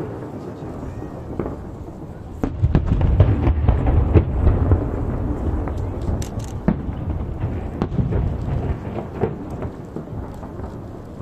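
Aerial firework shells bursting in quick succession: sharp bangs over a deep, rolling rumble, heaviest from about two to five seconds in.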